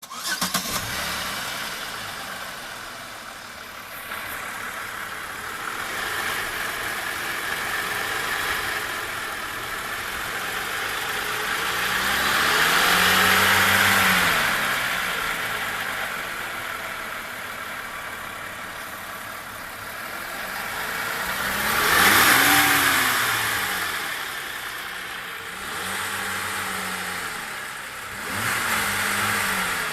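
Chevrolet Captiva 3.2 V6 petrol engine idling, revved up and let fall back a few times, the two longest blips about halfway through and near three-quarters of the way. No knock is heard: according to the owner, the knock went away after the engine was restarted.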